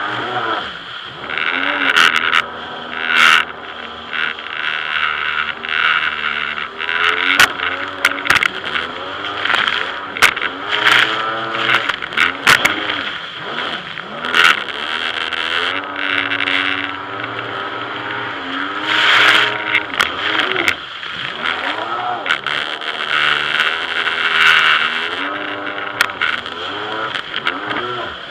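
Jet ski engine running at speed, its pitch rising and falling repeatedly as the throttle is worked, over a steady rush of water and spray. Sharp thumps break in throughout.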